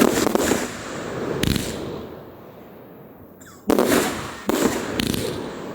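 Fireworks display: aerial shells bursting with loud bangs, one right at the start, another about a second and a half in, then three in quick succession in the second half, each trailing off in a rolling rumble.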